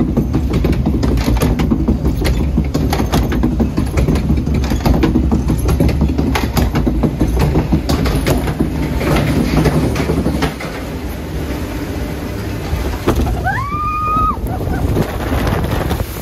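Mack Rides log flume boat riding up the lift hill on its conveyor, a steady low rumble with clattering that stops about ten seconds in as the boat leaves the lift. A short rising cry from a rider follows, and the boat hits the water in a splash near the end.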